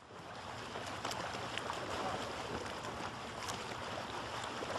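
Running, splashing water with small scattered drips and splashes, fading in at the start.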